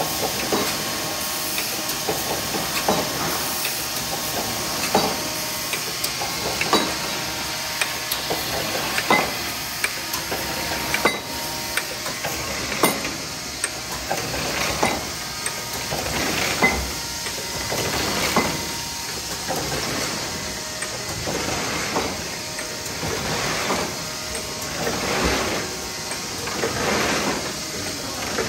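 1964 Bobst SP1260E Super Autoplaten flatbed die cutter running and feeding cardboard sheets: a steady mechanical hiss and whir, with a sharp clank from each machine cycle about every two seconds.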